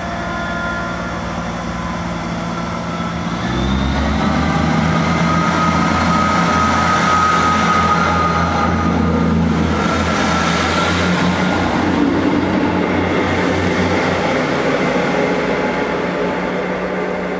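ScotRail Class 158 diesel multiple unit running past along a station platform: its underfloor diesel engines get louder as it draws level about four seconds in, with a high whine over them from about six to eleven seconds, then the sound fades as the train moves away.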